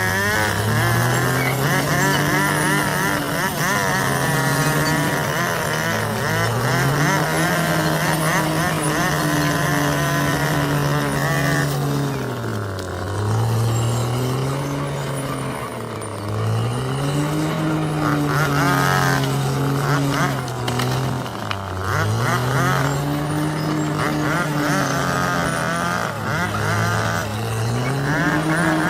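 Bulldozer's diesel engine working under load, its pitch sagging and climbing back about five times as it pushes soil, with a wavering higher whine and clatter over it.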